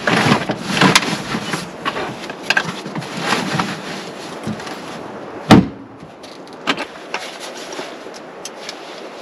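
Irregular knocks and clattering, with one loud, sharp thump about five and a half seconds in, then a few faint clicks.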